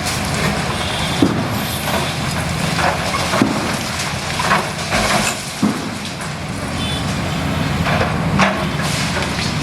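Heavy excavator's diesel engine running steadily, with about nine irregular sharp cracks and knocks of a building being broken up.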